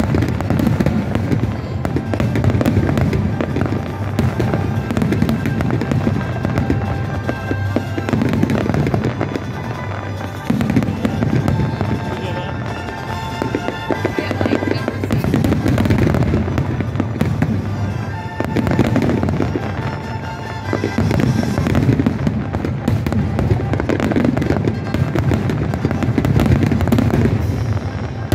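Fireworks display going off in a continuous barrage of bangs and crackles, swelling in waves every few seconds, with music playing along.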